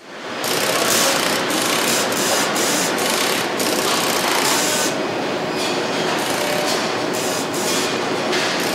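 Steady mechanical clatter and hiss of machinery, fading in over the first half second, with short hissing bursts about twice a second through the first half.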